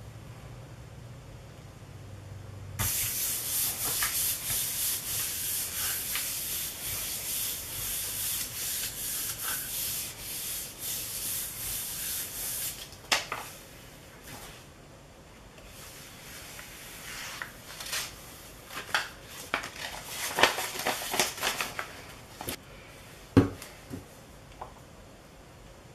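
A hand rubbing a sheet of printer paper laid over a gel printing plate, burnishing it to pull a print. The steady scratchy swishing starts about three seconds in and lasts about ten seconds. After it come lighter crackling of paper and a few sharp knocks.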